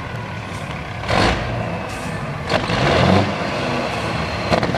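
Overfueled Peterbilt semi truck's diesel engine running with several sudden loud coughing surges, about four in a few seconds.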